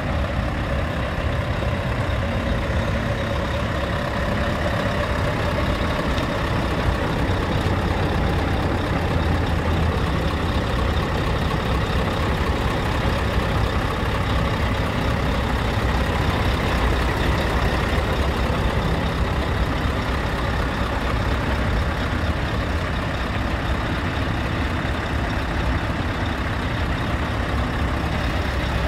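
Scania R tractor unit's diesel engine idling steadily with a constant low rumble.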